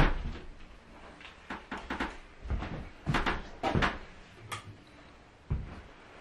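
Knocks, clicks and rustling of someone handling things and moving about in a small room, the loudest knock right at the start.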